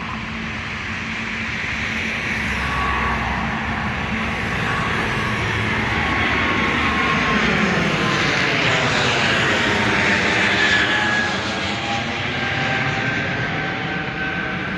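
Embraer E195-E2 jetliner's Pratt & Whitney PW1900G geared turbofans at takeoff power as the aircraft passes by on takeoff. The roar grows louder to a peak about ten seconds in, and the engines' whine drops in pitch as it goes past.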